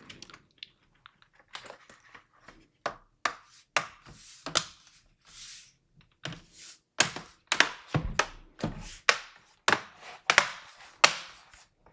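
Bottom cover of an Alienware 16 Aurora laptop being pressed back on, its retaining clips snapping into place one after another: a series of sharp clicks and snaps, louder and more frequent in the second half, with brief rubbing sounds between them.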